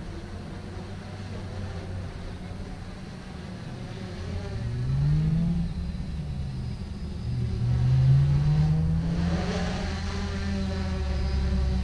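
A vehicle engine accelerating, its pitch rising twice as if it shifts up a gear in between, over a steady low rumble.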